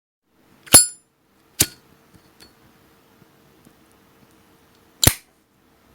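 Metal Zippo lighter lid clicking: three sharp metallic clicks, the first about a second in with a brief bright ring, the second soon after, and the third near the end, with faint small ticks between.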